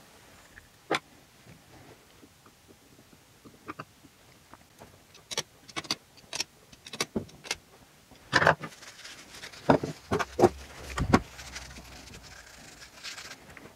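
Clicks and knocks of machined aluminium engine parts being handled on a workbench as a side cover is fitted onto a two-stroke crankcase. Scattered light clicks, closer together after the first few seconds, with a run of heavier knocks a little past the middle.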